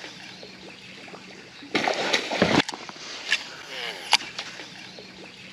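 A loud splash of water a little under two seconds in, lasting under a second, over fainter sloshing, with two sharp clicks later on.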